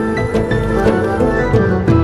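Instrumental background music: pitched notes shifting in a melody over a light, regular percussive beat.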